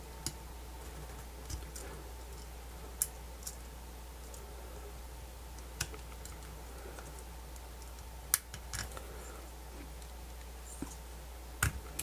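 Scattered small clicks and taps of needle-nose pliers and thin single-strand wire against a 3D-printed plastic battery adapter as the wire is threaded through its holes, a handful of irregular clicks over a faint steady low hum.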